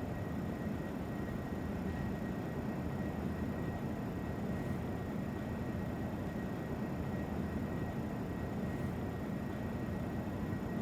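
Steady background hum and hiss, heaviest in the low range, with faint constant high tones and no distinct events: room tone.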